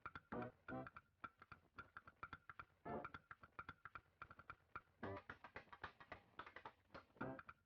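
Quiet background music of plucked, guitar-like notes at a loose, even rhythm.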